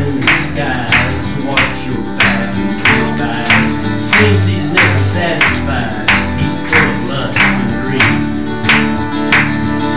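Live country-gospel band in an instrumental break: an acoustic guitar strummed in a steady rhythm over an electric guitar and low bass notes.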